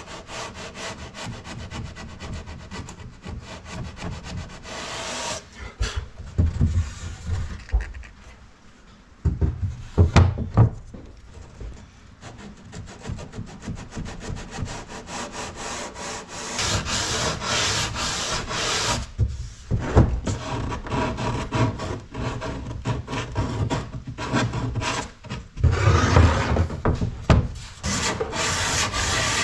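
Sandpaper on a hand sanding block rubbing over a wooden door panel, in quick back-and-forth strokes with brief pauses.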